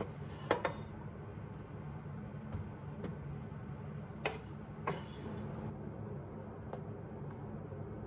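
A spoon clinking against the pan as pizza topping is scooped out: two sharp knocks about half a second in and two more between four and five seconds, with a few fainter taps. A steady low hum runs underneath.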